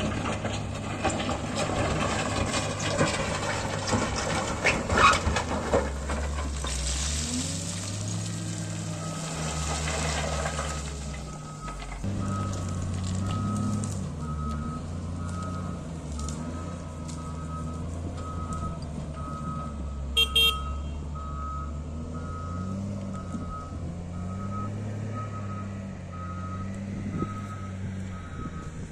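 Diesel engine of heavy road-construction machinery running and working, changing pitch under load, with rough clattering noise in the first third. From about a third of the way in, a reversing alarm beeps about once a second, and a brief high chirp sounds about two-thirds through.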